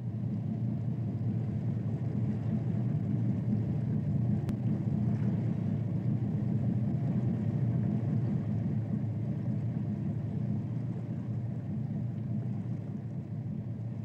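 A steady low rumbling drone, even in level throughout.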